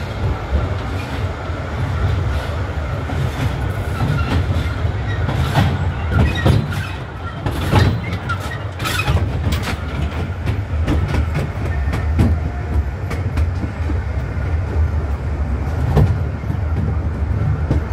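Tourist train running along its track: a steady low rumble with scattered clicks and knocks from the wheels on the rails.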